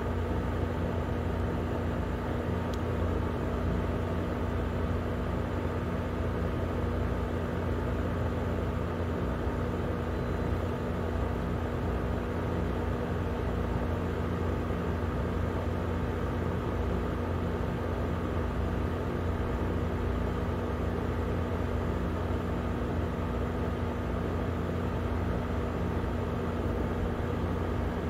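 Steady low background rumble with a constant low hum, unchanging throughout, with no rise or fall.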